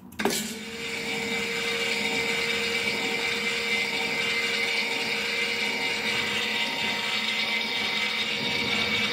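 Powabyke electric bike's 200-watt brushed DC front hub motor, run straight off a small battery: a click as the lead touches the terminal, then the motor spins up within the first second and runs freely with a steady whir and a constant whine. This shows that the untested motor works.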